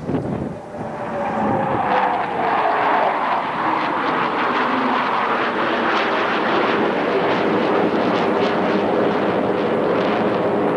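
F/A-18 Hornet jet engines roaring past. The roar swells about a second in and then holds loud and steady, with a whine that falls in pitch as the jets go by.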